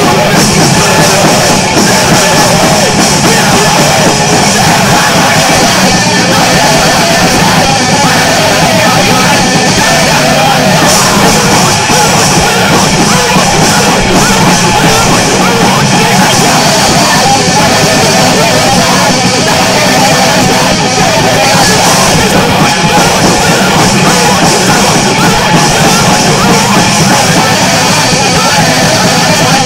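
Loud, dense heavy rock/punk song: full band with drum kit and shouted vocals, played without a break.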